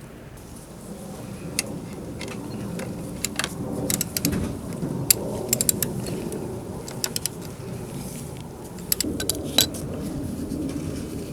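Irregular sharp metallic clicks and clinks, some in quick clusters, from hand tools and bolts as motorcycle fairing bolts are taken out, over a low rustling of handling.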